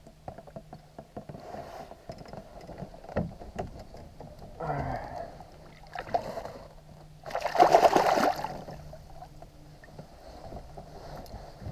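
Water splashing as a largemouth bass is released over the side of a small boat. The loudest part is a splash about seven and a half seconds in, lasting about a second, as the fish swims off. Light knocks against the boat come earlier.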